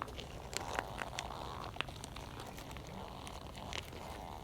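Faint rustling with a few light, irregular clicks: movement and handling noise from someone kneeling on the ground.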